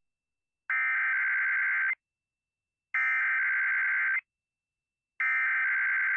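Emergency Alert System SAME header: three bursts of screechy digital data tones, each a little over a second long, with about a second of silence between them. This is the coded header that opens an alert or test message on NOAA Weather Radio and EAS broadcast receivers.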